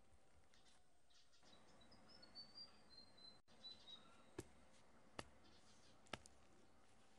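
Near silence: faint room tone with faint high bird chirps a couple of seconds in, then three light clicks about a second apart.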